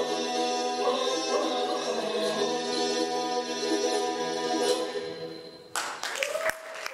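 Two men singing unaccompanied, one voice holding a steady low drone beneath the melody. The song ends about five and a half seconds in and applause breaks out.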